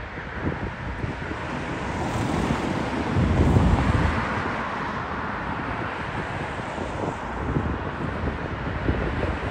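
Jet engines of a Boeing 777 on final approach, a steady rushing roar that swells to its loudest about three to four seconds in, mixed with wind buffeting the microphone.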